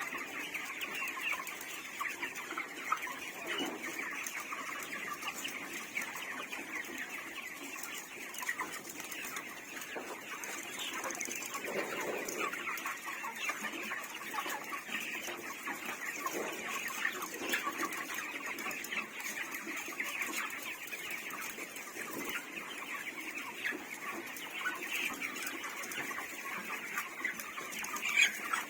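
A large flock of 28-day-old broiler chickens clucking and cheeping continuously, many birds calling over one another.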